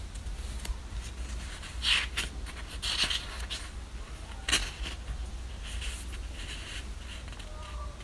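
Paper pages of a hardcover book being handled and turned: short, dry rustles, loudest about two, three and four and a half seconds in, with softer rustles later, over a steady low hum.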